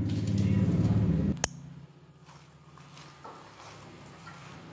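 A steady low hum that cuts off with a click about a second and a half in, then faint soft, wet squishing as cauliflower florets are mixed in a thick spice paste.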